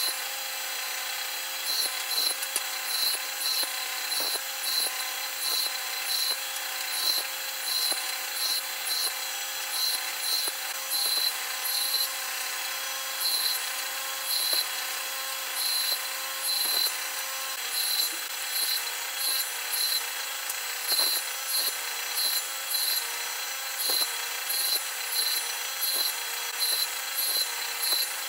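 Homemade table saw running steadily, with a short, louder cutting burst each time a piece of wood is pushed across the blade, roughly once or twice a second: repeated shallow passes cutting the cheeks and shoulders of tenons.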